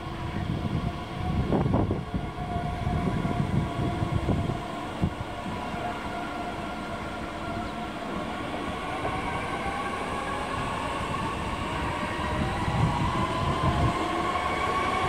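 Bombardier Talent 2 (DB class 442) electric multiple unit pulling away: wheels rumbling and knocking over the track, then the traction drive's whine rising slowly in pitch through the second half as it speeds up.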